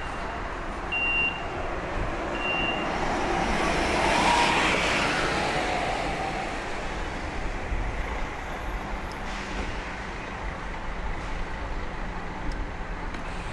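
City street traffic: cars and trucks running, with one vehicle passing close, loudest about four seconds in. A short series of high electronic beeps sounds in the first few seconds.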